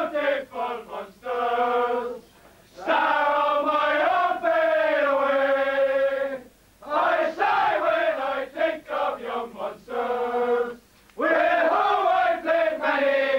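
Men singing together in a dressing room: a chant-like song in long held phrases, broken by short pauses for breath.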